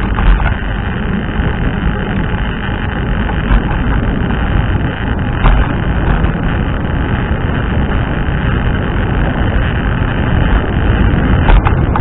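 Wind rushing over the microphone of a rider moving on a scooter: a steady, loud rumbling noise, with a couple of faint clicks partway through.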